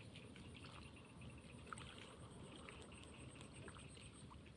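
Near silence: faint outdoor background noise with a few faint clicks and a faint high-pitched pulsing tone.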